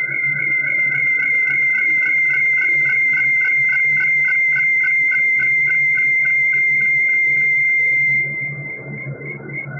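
Electronic music: a high, whistle-like synthesizer tone pulsing about four times a second over a steady low drone. About eight seconds in the upper part drops out and the music gets quieter.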